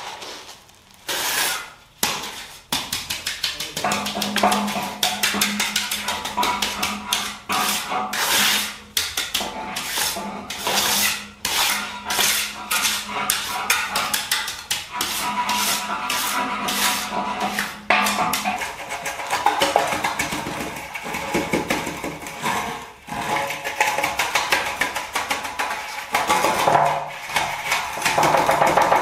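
Hand tools scraping and knocking on wet concrete and a metal screed rail, a rapid run of short knocks and scrapes, with music playing along.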